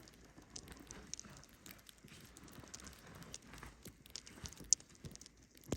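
Irregular soft crunches and scrapes in heavy, wet snow.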